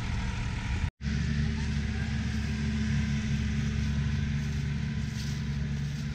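Farm tractor engine running at a steady speed as it pulls a loaded hay wagon past. The sound drops out for an instant about a second in.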